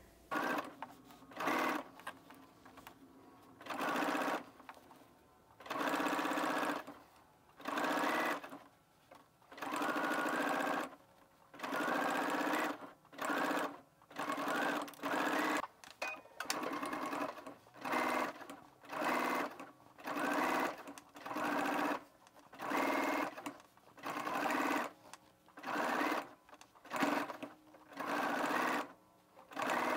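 Electric sewing machine stitching in short stop-start runs, about one burst every second and a half with brief pauses between, while bias binding is sewn onto a seam allowance.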